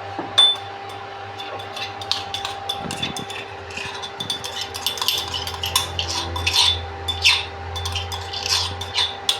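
Spoon clinking and scraping against cookware as the freshly crushed masala-chai spices are tipped into the pan, a run of sharp clicks and clinks throughout. Under it, a steady electric hum from the switched-on induction cooktop.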